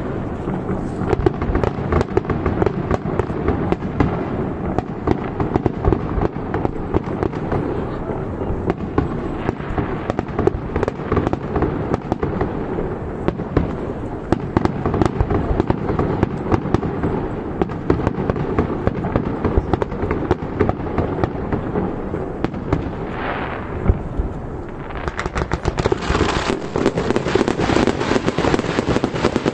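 Fireworks display: a continuous barrage of bangs and crackling shells, with a denser, louder volley near the end.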